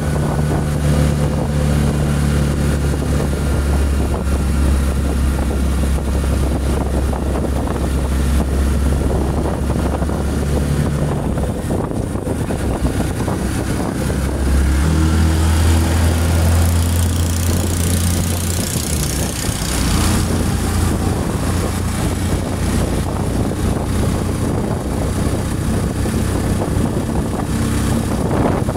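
Truck engine running steadily under way, heard from inside the moving vehicle with road and wind noise. The engine note steps up and gets a little louder about halfway through, then settles again.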